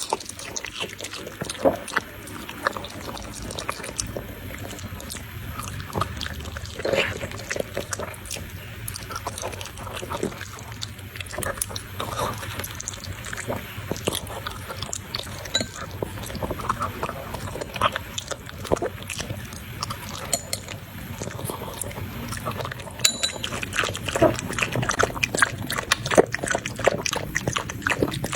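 Dog eating, with irregular wet chewing, smacking and slurping clicks throughout.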